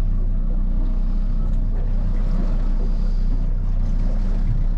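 Boat engine idling, a steady low hum.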